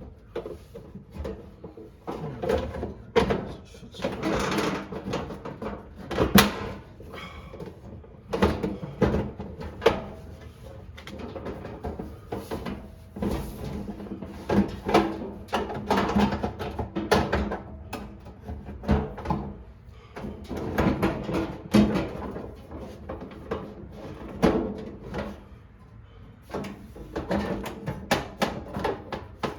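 Irregular clatter of hard knocks and clicks, like parts and tools being handled and set down.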